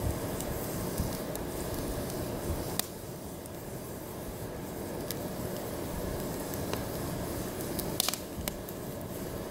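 Wood campfire burning with a steady rush of flame and scattered sharp crackles and pops from the logs.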